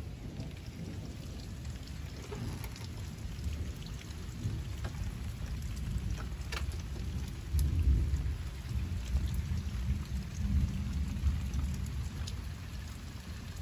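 Thunder rumbling low and continuously, swelling louder about halfway through and then easing off. A few scattered raindrop ticks and drips sound over it as the rain tapers off.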